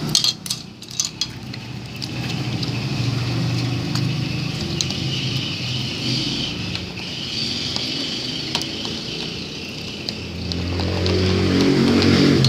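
A steady engine hum that grows louder about ten seconds in, with a few short clicks in the first second or so.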